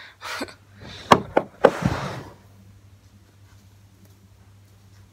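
Hair straightener being picked up and handled: two sharp knocks about half a second apart, followed by a short rustle, then only a faint steady hum.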